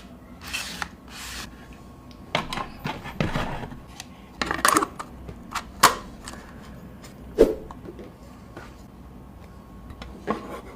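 Hands unpacking and handling gear and packaging: irregular rustling and rubbing, broken by scattered sharp clicks and knocks, the loudest about six and seven and a half seconds in.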